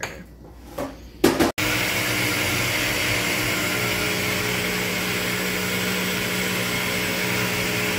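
Countertop blender running, blending dates and water into a drink. The motor starts abruptly about a second and a half in and then runs at a steady level with a steady hum.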